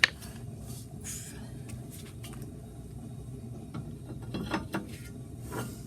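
Metal clanks and scraping as a brake rotor is fitted back over the wheel hub: one sharp knock at the start, a brief scrape about a second in, and a few more clinks near the end.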